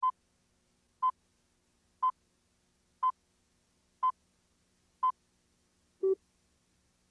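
Electronic beep tones: six short, identical high-pitched beeps, one each second, followed by a seventh beep about six seconds in that is lower in pitch and slightly longer.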